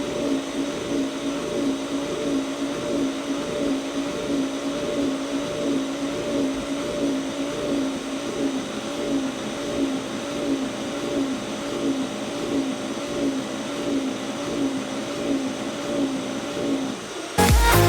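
Eufy RoboVac 30C robot vacuum running: a steady motor hum whose pitch wavers up and down in an even rhythm.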